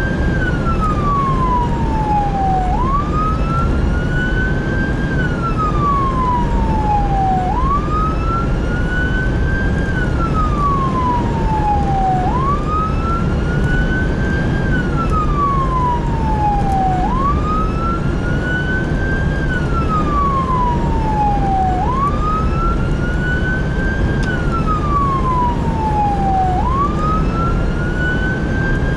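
Fire engine siren on a slow wail: each cycle jumps up quickly, then glides down over about two and a half seconds, repeating roughly every five seconds. Underneath runs a steady low rumble of engine and road noise.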